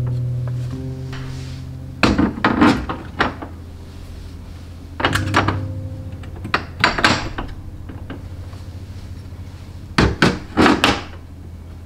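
Glass clip-top jars being set down and slid onto a refrigerator shelf: four short clusters of knocks and glassy clinks, the last near the end.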